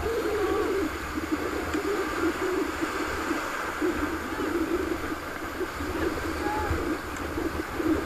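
Rushing whitewater of a river rapid churning around an inflatable raft, a steady unbroken rush with a low rumble underneath.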